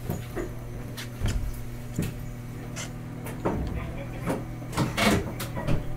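Inside a Hakodate City Tram 3000-series car halted at a stop: a steady low hum from the standing tram's equipment, with irregular sharp clicks and knocks scattered over it, thickest about five seconds in.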